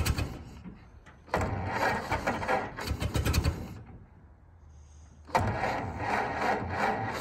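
1921 Ford Model T's four-cylinder side-valve engine running unevenly, revving in stretches of rapid firing and falling back to a faint low idle twice: a little under a second in and around four seconds in.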